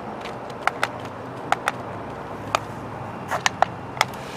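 Toy stunt RC car clattering on a hard surface: about nine sharp, irregular plastic knocks and clicks, bunched in quick pairs and a triple, over a steady low hum.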